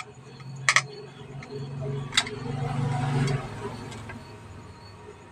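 Sharp clicks and knocks of a screwdriver and plastic parts while a Bluetooth speaker is taken apart to get at its circuit board: a double click near the start and a single click about two seconds in. A low hum runs underneath for about three seconds and stops.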